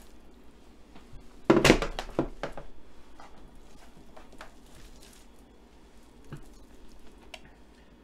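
A heavy slab of raw beef chuck (the underblade) set down with a loud thud onto a metal sheet pan about a second and a half in, followed by a few faint knocks and handling sounds as the meat is moved about.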